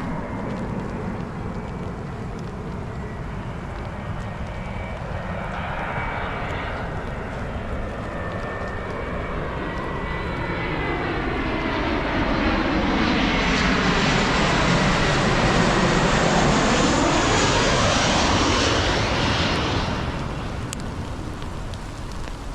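An airliner flying low overhead: its engine noise builds up, is loudest about two-thirds of the way through, then fades quickly, with a whine that falls in pitch as it passes.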